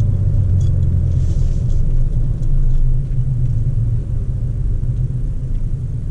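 Steady low rumble of a Toyota Tacoma pickup driving, heard from inside the cab: engine and road noise. It gets a little quieter about halfway through.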